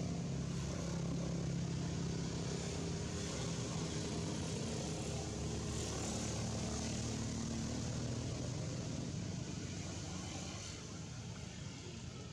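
A motor engine running steadily, a low hum with a broad rushing noise over it, fading somewhat near the end.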